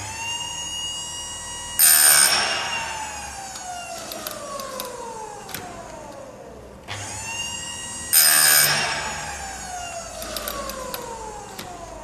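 Electric chain saw sharpener's motor whining up to speed, then a short loud grinding burst as its corundum wheel meets a chain tooth, after which the whine falls slowly in pitch as the wheel coasts down. The cycle happens twice, the motor starting again about seven seconds in.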